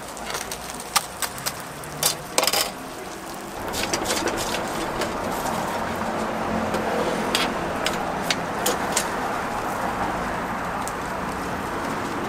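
Street ambience with a steady rush of passing traffic, which swells in about four seconds in. Several sharp clicks and knocks come in the first three seconds, with a few more later on.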